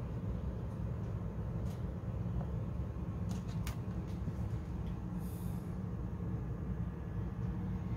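Steady low background rumble, with a few faint light clicks around the middle.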